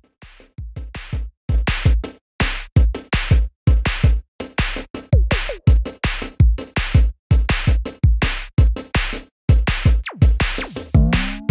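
Electronic music with a fast, choppy drum-machine beat over deep bass, each hit cut off sharply; a falling sweep near the end.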